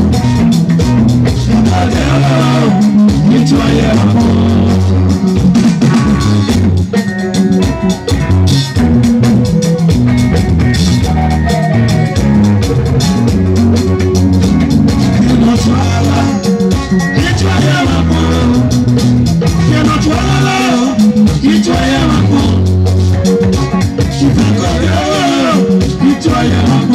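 Live Edo band music: electric guitar, a moving bass line and drums keeping a steady beat, with a male singer at the microphone.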